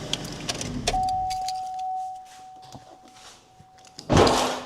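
Car keys jingling as the engine is switched off, followed by a steady electronic beep that lasts about three seconds. A loud, short rustling thump comes near the end.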